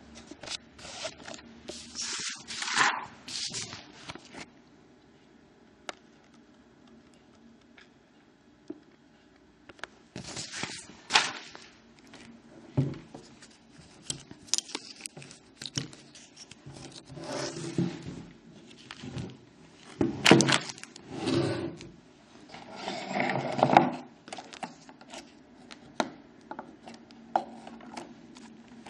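Irregular scraping and rubbing noises in short bursts, with a few sharp knocks.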